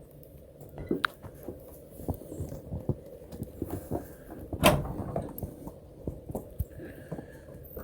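Goats moving about on a wooden shelter floor: scattered hoof knocks and shuffling, with one sharper, louder knock about halfway through.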